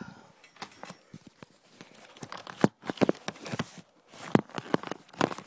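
Handling noise from a camera being gripped, moved and set in place: a rapid run of knocks, clicks and rustles against the microphone, with a couple of louder knocks in the middle.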